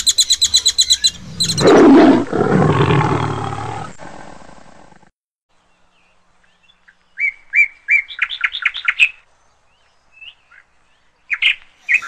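Caged songbird chirping in a rapid, even series, cut off about a second in by a loud rushing sound that fades away over about four seconds. After a short pause come a quick run of short, high bird chirps and a few scattered single chirps.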